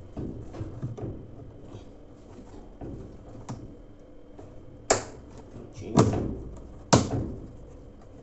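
Light clicks and taps, then three sharp knocks about a second apart, as parts are fitted into place on a top-loading washing machine during reassembly.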